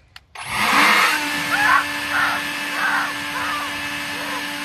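EGO cordless battery leaf blower switched on about half a second in, spinning up quickly into a loud rush of air with a steady motor whine, then running steadily.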